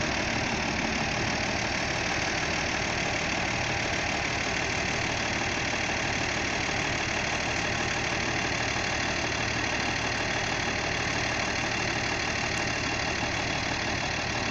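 Zetor 16145 tractor's six-cylinder diesel engine idling steadily.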